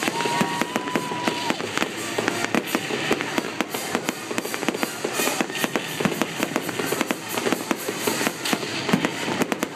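Fireworks bursting in a rapid, continuous barrage of bangs and crackles, with a steady high tone lasting about a second and a half near the start.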